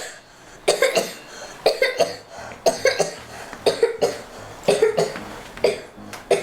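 A person coughing over and over, about once a second.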